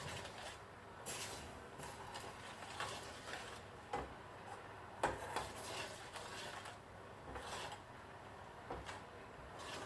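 A few faint, scattered clicks and knocks of kitchen utensils being handled, at irregular moments over a quiet background.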